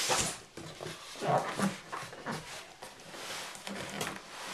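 Cardboard scraping and rubbing as a boxed iMac is worked out of its tight-fitting shipping carton, with a few short, low grunts of effort about a second in.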